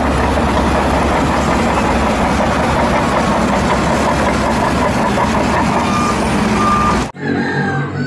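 Large Shantui crawler bulldozers working a pile of earth: a loud, steady diesel engine rumble with heavy machine noise. Two short beeps come near the end, and the sound cuts off suddenly about seven seconds in.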